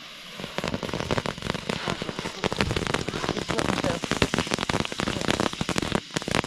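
Small ground 'tank' novelty firework going off: a dense run of rapid crackling pops that starts about half a second in and dies away about six seconds in.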